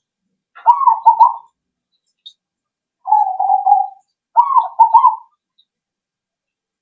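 Zebra dove (perkutut) cooing its song. A phrase of three quick rising-and-falling coos about half a second in; a rolling, burry coo about three seconds in, followed at once by three more quick coos.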